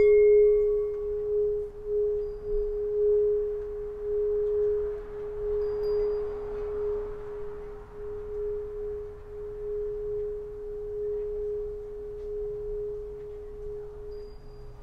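Solfeggio tuning pipe struck once. It rings with a single steady pure tone that wavers slightly and slowly fades, with a brief higher shimmer right at the strike.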